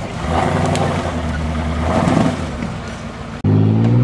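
Off-road trial buggy's engine running under load while crawling over rocks, its throttle shifting but its pitch holding fairly steady. About three and a half seconds in, the sound cuts abruptly to another engine running at higher revs, its pitch rising slightly.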